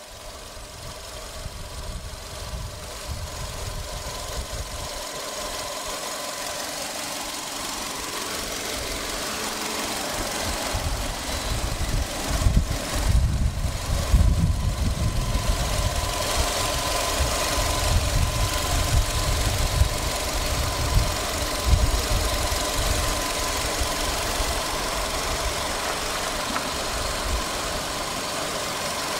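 Volkswagen Jetta's 1.6-litre 16-valve inline-four engine idling steadily with a constant whine, growing louder over the first several seconds as heard closer to the engine. A few short thumps stand out about twelve to fourteen seconds in.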